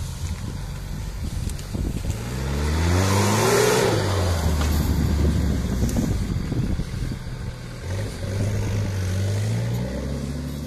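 Off-road vehicle engine revving under load, its pitch climbing steeply about two seconds in and running high, then rising again near the end.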